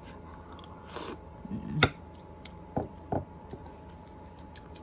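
A person eating a mouthful of ramen noodles: wet chewing and mouth smacks, with a few short sharp clicks scattered through it.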